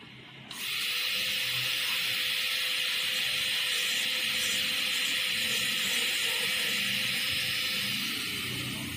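High-speed dental air-turbine handpiece running with a steady hiss and a faint steady tone, cutting a model tooth. It starts about half a second in and tails off near the end. The bur is giving a Class II cavity preparation its final light rounding.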